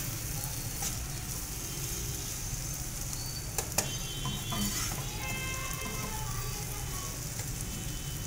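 Onion and tomato masala sizzling in oil in a wok as a metal spatula stirs it, with a couple of sharp clicks of the spatula against the pan about three and a half seconds in.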